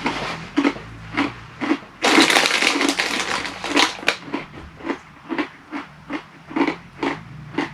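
Crunchy spicy ranch tortilla chips being chewed close to the microphone, crunching about twice a second. A denser run of crackling comes about two seconds in and lasts about two seconds.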